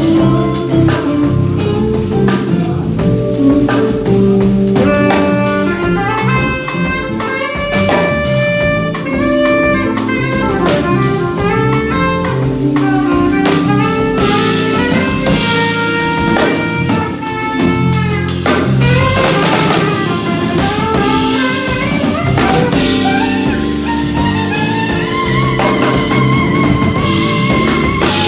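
A live band with a drum kit playing a song through at a soundcheck, with sustained melodic lead lines over the drums.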